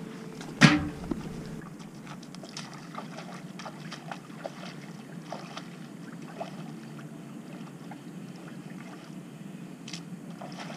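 The lid of an irrigation valve box bangs shut once, under a second in. Then rubber boots squelch and splash through standing water and mud in a flooded field, a step every second or so.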